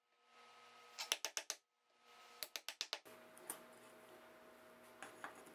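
Hammer tapping a wood chisel in two quick runs of about five or six light strikes, then a few single taps, as the chisel cuts a finger-grip notch into the wooden lid of a router-lift opening.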